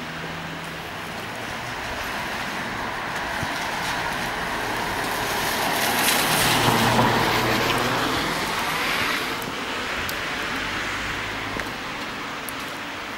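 A car driving past on a wet street, its tyres hissing on the rain-soaked road. The sound grows louder to a peak about six to seven seconds in, then fades away.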